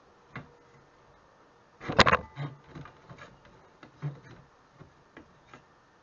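Steel pedal bracket and pedal arms of a Mopar B-body pedal assembly knocking and clanking together as they are handled and fitted. A loud clatter of knocks comes about two seconds in, followed by scattered lighter clicks.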